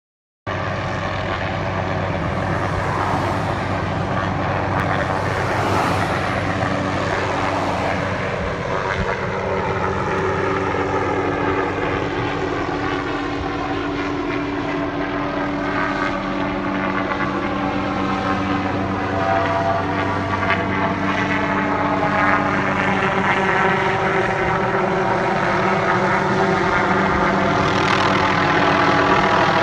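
Helicopter flying nearby: a steady drone of turbine engine and rotor blades, growing slightly louder toward the end.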